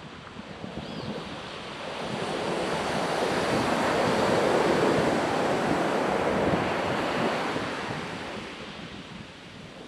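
Ocean surf: a single wave builds, breaks and washes in, loudest about halfway through, then fades away.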